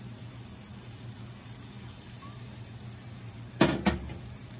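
Faint steady hum, then two or three sharp knocks of kitchenware close together about three and a half seconds in.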